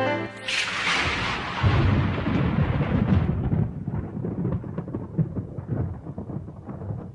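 A sudden rushing crash about half a second in, turning into a deep rumble with scattered crackles that slowly fades away.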